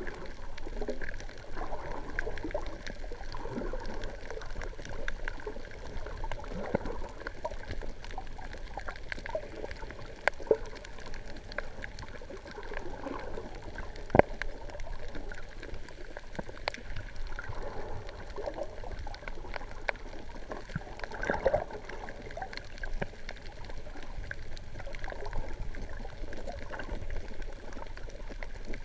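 Water sloshing and gurgling around a GoPro Hero 3 Black held underwater, heard muffled through its waterproof housing, with scattered sharp clicks, the loudest about fourteen seconds in.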